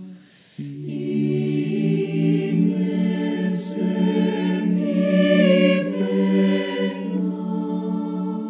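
Mixed choir of men's and women's voices singing slow, sustained chords in Spanish, a virtual choir put together from separately filmed singers. The sound drops out briefly at the start, and a new chord comes in just over half a second in.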